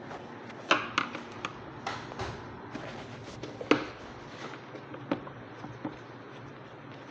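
Scattered clicks and knocks of a vacuum cleaner's hard plastic housing being handled and its screws put back in during reassembly, with the loudest knocks about a second in and near the middle.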